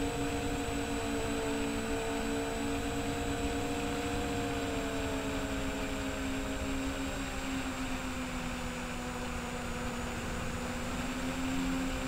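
Brushless motors and triblade propellers of a modded MJX Bugs 3 quadcopter in flight, recorded by its onboard camera: a steady multi-tone hum whose pitch sags a little midway and rises again near the end as the throttle changes, over rough wind noise on the microphone.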